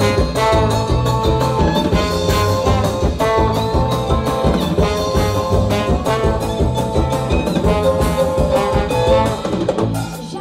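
Live brass-band music: a trombone plays the lead line over a sousaphone bass and a drum kit keeping a steady, upbeat rhythm.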